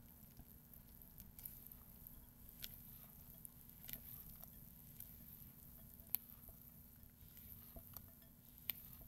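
Silicone spatula stirring and folding thick batter in a glass bowl: faint squishing with scattered light clicks of the spatula against the glass, the sharpest about six seconds in.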